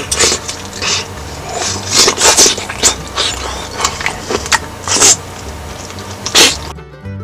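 Close-up eating sounds: a run of loud slurps and sucking bites as spicy skewered fish cakes and fish balls are eaten off bamboo sticks, the biggest slurps about two seconds in, around five seconds and near the end.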